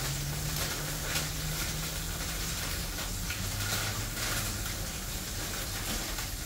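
Kitchen faucet running steadily into the sink while baby spinach is rinsed under the water.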